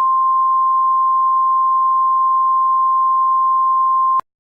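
Emergency alert attention signal: one loud, steady, unwavering electronic tone that cuts off abruptly near the end. This is the single-tone alert that precedes a new spoken emergency bulletin.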